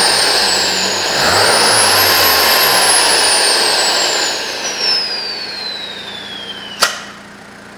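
Turbocharged car engine revved twice, its turbo whistle climbing high and then winding down in a long falling whine as the revs drop. A single sharp crack comes near the end, and the engine settles to idle.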